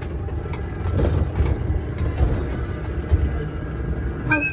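Small electric ride-on train running along its track: a steady low rumble with light clatter from the cab. Near the end a high, steady squeal sets in.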